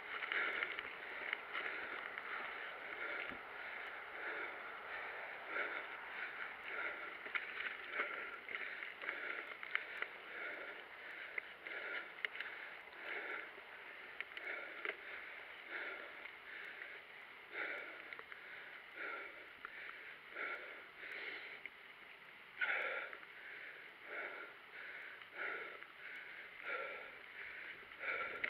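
Mountain bike ridden over a dirt and gravel trail, picked up by a handlebar-mounted camera: steady rolling and rattling noise with regular pulses about one and a half to two times a second.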